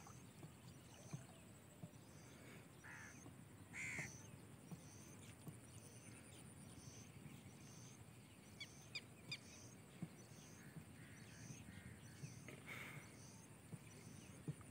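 Near silence of open riverside air, with a few faint bird calls and a faint high chirp that repeats at a steady rhythm.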